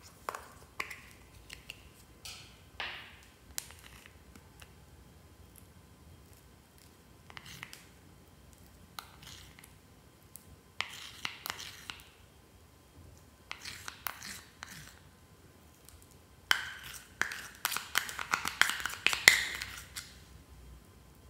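Fluffy slime being squeezed and stretched by hand: bursts of sticky clicks and pops as air pockets break, with the densest, loudest run near the end.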